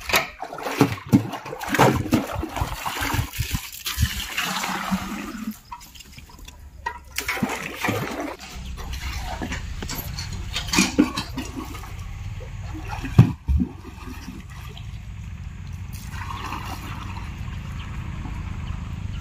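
Water splashing and sloshing as a steel bucket on a rope is dipped into a cement water tank and hauled up, with knocks of the metal bucket and one sharp knock about thirteen seconds in. A steady low rumble runs underneath from about eight seconds in.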